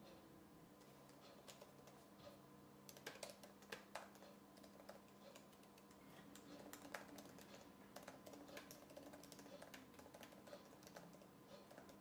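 Quiet typing on a MacBook Air laptop keyboard: a run of soft, irregular key clicks starting about three seconds in and stopping near the end.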